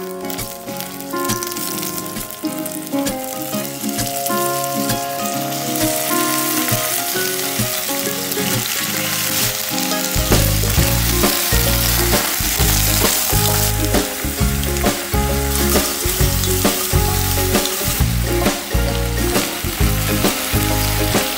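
Oil sizzling steadily as garlic, ginger, scallion and chili fry in an enamelled cast-iron pot, then chunks of pork shoulder sizzling as they are stir-fried. Background music plays over it, and a steady beat comes in about ten seconds in and is the loudest part from then on.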